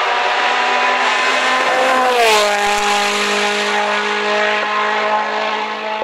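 MINI John Cooper Works WRC rally car, with a 1.6-litre turbocharged four-cylinder engine, passing at speed. Its engine note drops in pitch as it goes by about two seconds in, then holds steady as it pulls away.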